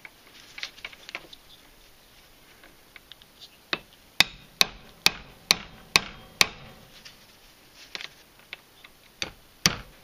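Hammer blows on a bolt, driving a seized brake caliper piston out of an MTD lawn tractor transaxle's aluminum caliper held in a vise. A run of about seven sharp taps a little under half a second apart, then a pause and a few more taps near the end.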